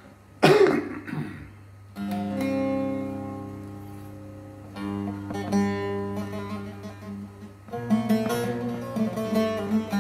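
A short cough about half a second in, then a bağlama (long-necked Turkish saz) strummed: single chords at about two and five seconds that ring out and fade, then quick, continuous strumming from about eight seconds in.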